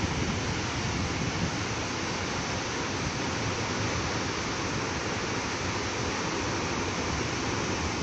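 Steady rushing of a tall waterfall, an even, unbroken noise of falling water.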